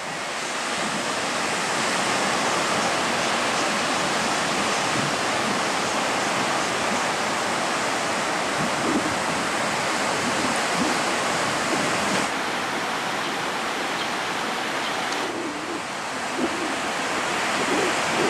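Ocean surf breaking on the shore: a steady, dense rushing hiss of waves and whitewater.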